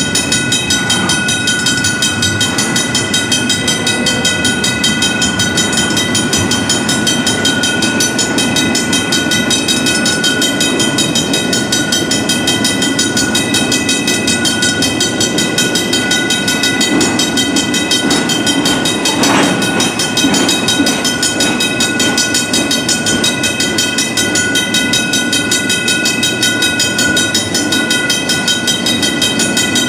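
Two Griswold mechanical railroad crossing bells ringing rapidly and without pause as a double-stack intermodal freight train rolls slowly through the crossing, its wheels rumbling and clicking over the rail joints.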